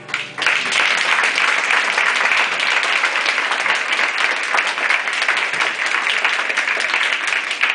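Audience applauding: a dense, steady clapping that starts about half a second in.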